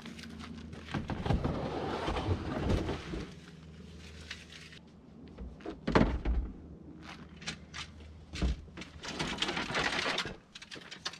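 A large plastic cooler is lifted and pushed into the cargo area of an SUV, with scraping and handling noise, then one loud thunk about six seconds in. Scattered knocks and clatter follow as gear is shuffled in the back.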